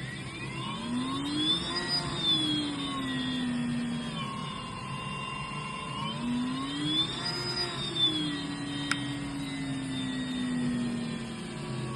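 Electric motor of a Schallberger EF Facette Star edge milling machine spinning up to speed and then winding down, twice in a row, its whine rising quickly and falling slowly each time. A short click about nine seconds in.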